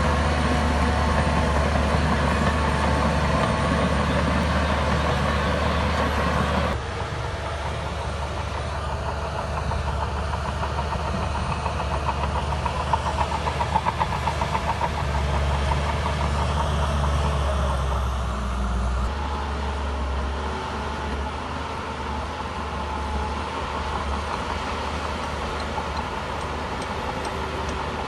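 Shantui DH17 bulldozer's diesel engine running steadily under load, with fast rhythmic clanking from its steel tracks. The sound drops and changes abruptly about seven seconds in.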